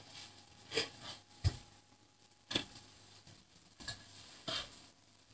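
A handful of light, separate clicks and knocks of plates and serving utensils at a kitchen counter as food is served onto plates.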